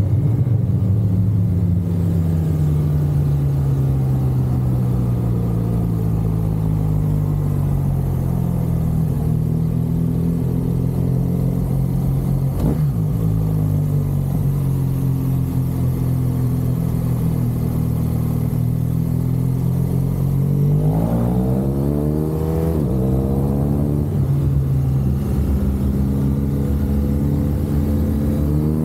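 BMW R1200 GSA's boxer-twin engine under way: its pitch falls as the bike slows, runs steady through a bend with a brief break about halfway, then climbs in two quick sweeps with a gear change between them as it accelerates, rising again near the end.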